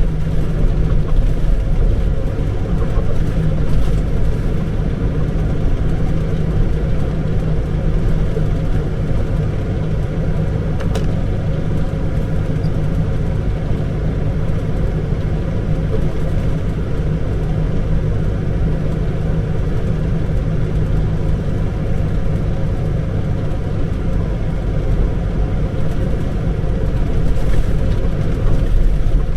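Semi-truck's diesel engine running steadily under way, with a low even drone and road noise heard from inside the cab.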